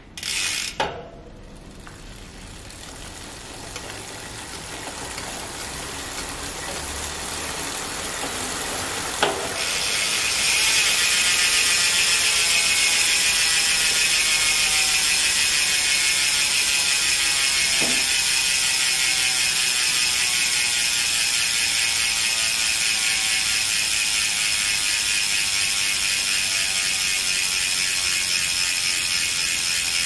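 Novatec D042SB three-pawl rear hub freewheeling: a fast, steady buzz of pawl clicks as the spinning rear wheel coasts, after about 400 km of use. The buzz grows louder over the first ten seconds, then slowly drops in pitch as the wheel slows.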